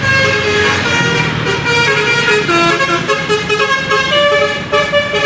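Bus telolet horn playing a quick tune of stepping multi-tone notes, over the steady low hum of engines in traffic.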